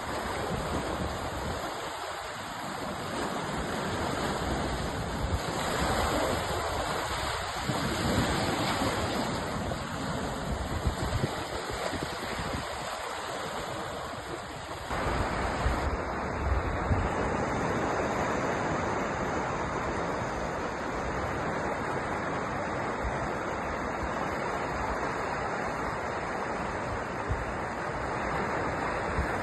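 Ocean surf: a continuous wash of waves that swells and eases in the first half, then about halfway through jumps abruptly to a louder, steadier wash.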